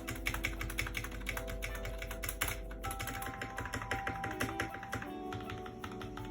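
Rapid typing on a mechanical keyboard whose switches have been lubed (bottom housings, top housings and springs), giving a dense run of keystrokes over background music.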